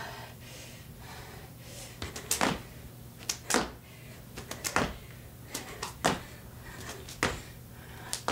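Hambone hops: hands slapping the thighs and chest and feet landing on a wooden floor, in short sharp slaps and thuds coming about once a second, often in pairs.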